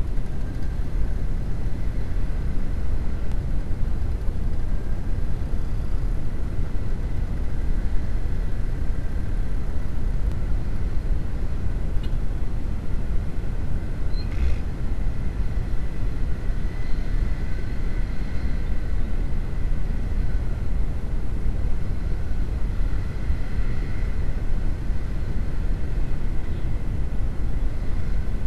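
Honda CB150R's 150 cc single-cylinder engine running on the move through traffic, heard as a steady low rumble mixed with wind buffeting on an action camera's microphone.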